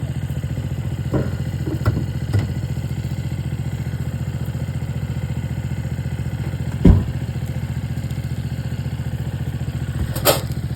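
An engine idling steadily with an even, fast pulse, broken by a few short knocks; the loudest knock comes about seven seconds in.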